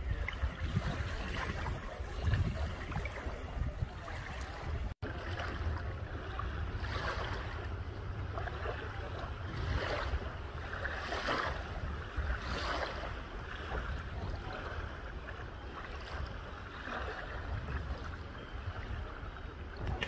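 Small wavelets lapping and washing up on a sandy bay shore, each wash a short swell of hiss, over a steady low rumble of wind on the microphone. The sound cuts out for an instant about five seconds in.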